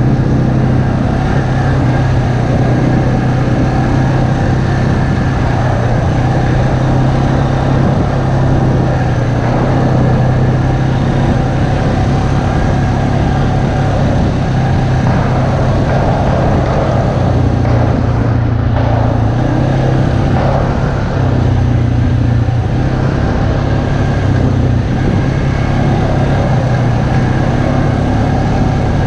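ATV engine running at a steady cruising speed along a dirt trail, one even low engine note with a steady rushing noise of wind and tyres over it.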